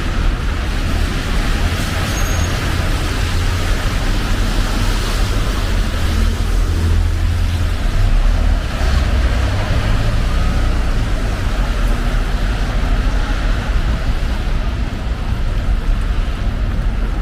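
Street traffic on rain-wet roads: a steady low rumble of engines under an even hiss of tyres and rain.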